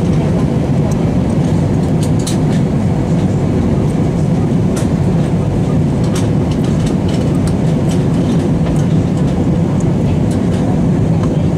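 Airbus A320 cabin noise on final approach: the steady rumble of the engines and rushing air, heard inside the cabin, with faint scattered clicks and rattles.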